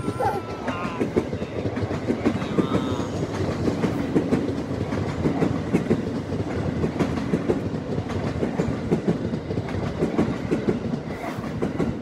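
Electric commuter train running past, its wheels clattering over rail joints and points in quick, irregular clicks; the noise starts abruptly.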